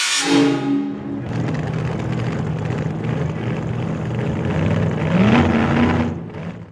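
Car engine running as the vehicle drives, rising in pitch about five seconds in and cutting off shortly before the end.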